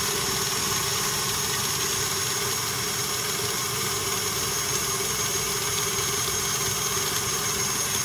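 KitchenAid stand mixer motor running steadily with a constant whine, its beater whipping soft butter and honey in a stainless steel bowl.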